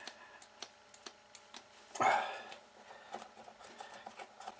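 Light, irregular clicks and taps of small hobby tools being worked on a workbench, with one louder rasp about two seconds in.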